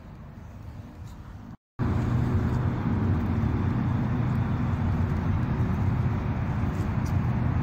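Faint background, then after a brief break in the sound about a second and a half in, a loud, steady, low engine hum begins abruptly and runs on evenly.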